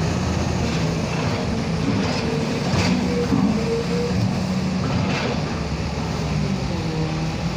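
Construction crane machinery running steadily, its pitch stepping up and down, with a metallic clank about three seconds in and another about five seconds in.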